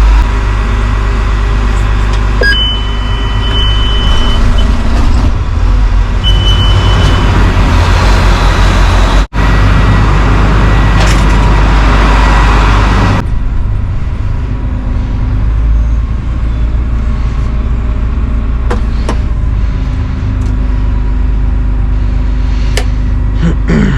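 Combine harvester's diesel engine running steadily just after being started. Short high electronic warning beeps from the cab come twice early on. About halfway, the sound becomes quieter and duller.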